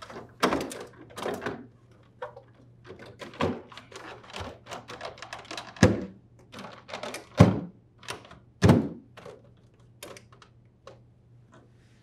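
Plastic evaporator cover of an LG refrigerator being pressed into place by hand and snapping in: a run of clicks and knocks, with three louder snaps about a second and a half apart midway through.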